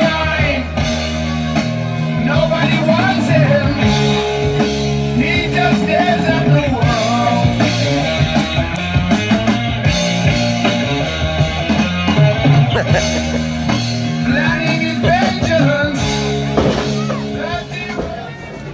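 Rock song with a sung vocal playing loud over a PA, fading down near the end.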